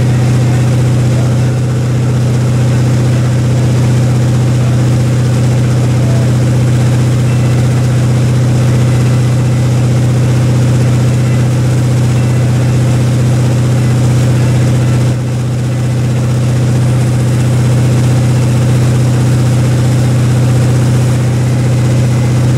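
Tow boat's engine running steadily under way, heard from on board as a loud, even low drone, dipping briefly once about two-thirds of the way through.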